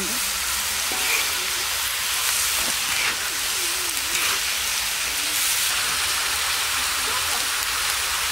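Chopped eel and lemongrass sizzling steadily in a hot wok, stirred now and then with a metal spatula.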